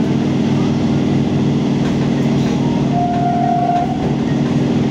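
Local train's motors humming steadily as the train runs, with rail and running noise. A brief higher tone sounds about three seconds in.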